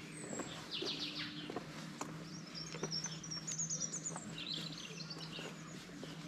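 Small birds singing, with bursts of quick high chirps and trills coming several times, over footsteps on the pavement and a low steady hum.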